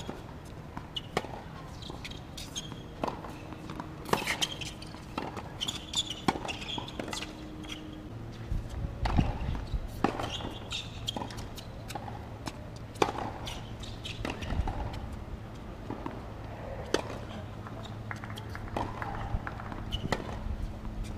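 Tennis rally on a hard court: sharp racket-on-ball strikes and ball bounces at irregular intervals, with shoe scuffs on the court surface.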